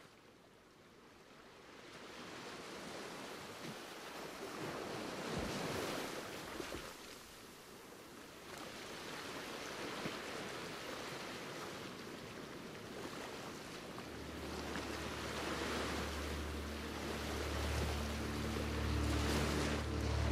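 Rushing noise of waves that fades in from near silence and swells and ebbs every few seconds. About fourteen seconds in, steady low sustained notes come in under it, the start of background music.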